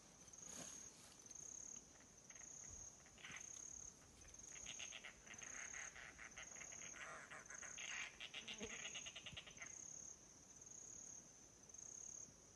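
Quiet bush ambience: a high insect chirp pulsing steadily about once a second, with a rapid chattering trill from some animal for several seconds in the middle.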